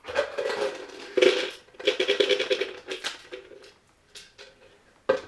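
Small screws and parts rattling and clattering as someone rummages through a container for them, then a sharp knock near the end.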